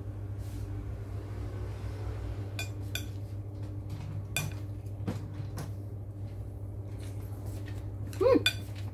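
Metal spoon clinking and scraping against a ceramic plate of salad, a handful of separate clicks spread over several seconds, over a steady low hum.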